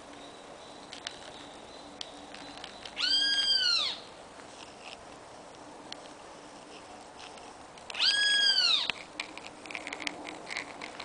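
A domestic cat meowing twice, a few seconds apart, each call about a second long, rising and then falling in pitch.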